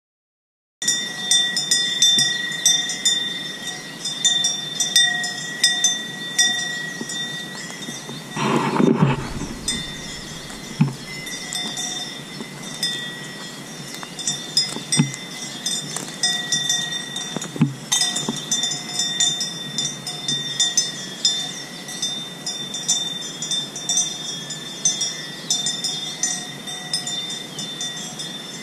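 Bells on grazing livestock clanking and ringing irregularly as the animals move and feed, with one louder, lower sound about nine seconds in.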